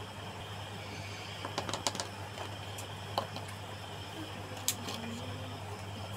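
A few scattered light clicks and taps over a steady low hum.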